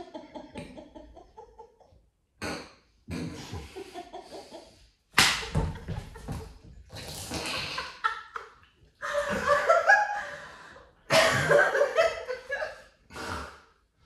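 A sharp smack as a flour tortilla is slapped across a person's face about five seconds in, followed by bursts of laughter.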